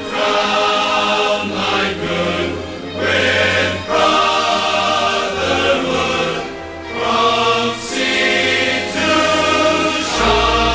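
Large all-male choir singing in full harmony, chords held for a second or two each. A deep bass note enters near the end.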